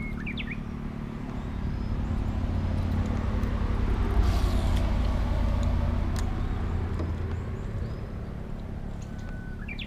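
A steady low hum that swells about a third of the way in and eases off toward the end, with short high chirping calls of a small bird at the start and again near the end.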